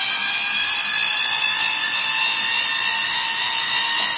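Handheld electric drain snake (drum auger) running steadily in forward, its motor giving a high-pitched whine as it spins the drum and feeds the coiled cable out.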